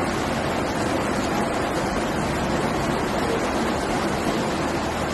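Steady, even rushing noise of floodwater and heavy rain.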